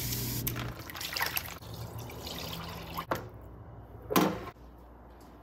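Wet, dripping sounds of raw chicken wings being handled and patted dry in a metal bowl, with a few short separate sounds, the loudest a little after four seconds in. A steady hiss stops under a second in.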